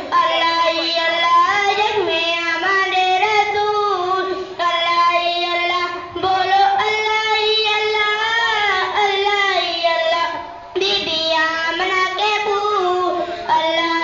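A boy reciting a naat, a devotional poem in praise of the Prophet Muhammad, in a high voice through a microphone and loudspeakers. He sings in long, ornamented melodic lines and breaks briefly for breath about three quarters of the way through.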